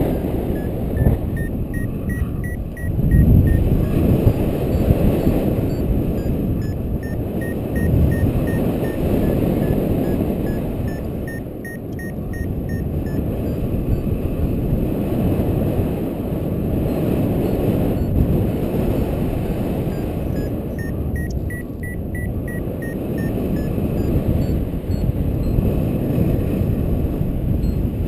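Heavy wind rushing over the microphone in flight, with a paragliding variometer beeping in quick runs of short tones that drift up and down in pitch, its climb tone, which signals rising air. The beeping comes in four separate runs.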